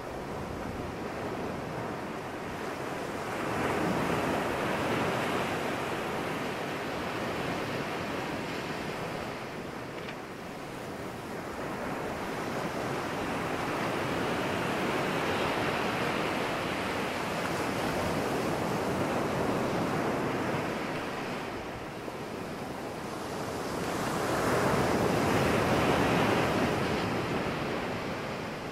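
Small surf breaking among rocks and washing up a sandy beach, a steady rush that swells and ebbs with each set of waves, loudest near the end.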